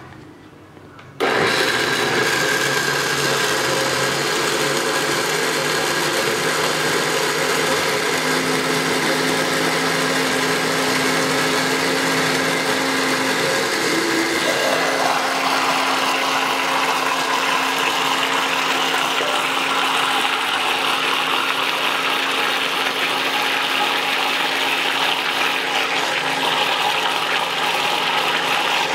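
Electric kitchen blender switching on suddenly about a second in and running steadily, its tone changing about halfway through.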